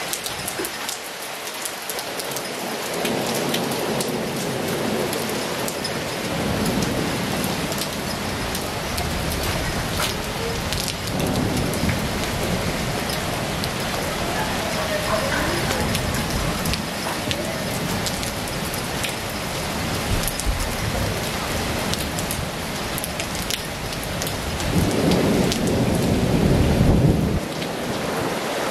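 Heavy rain falling steadily, with a fine crackle of close drops over the hiss. Low rumbles of thunder swell and fade several times, the loudest near the end.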